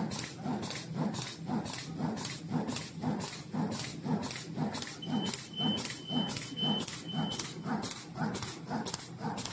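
Zipper-lock plastic bag making machine running in a steady cycle, about two strokes a second, each stroke a low thud with a sharp high edge. A string of short high beeps sounds about halfway through.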